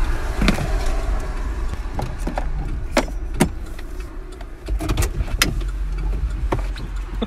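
Car interior noise: a steady low rumble of the vehicle, with about half a dozen sharp knocks and clicks spread through it.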